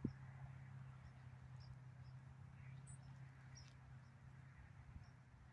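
Near silence outdoors: a low steady hum with a few faint, short, high bird chirps scattered through it.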